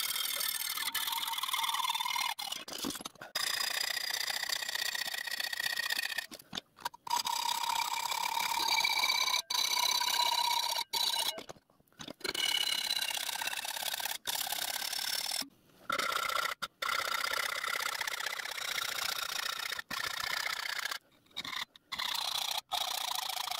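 Hacksaw cutting 1/8 in metal plate clamped in a bench vise: continuous back-and-forth rasping strokes with high ringing tones from the blade and plate that shift in pitch, broken by several brief gaps.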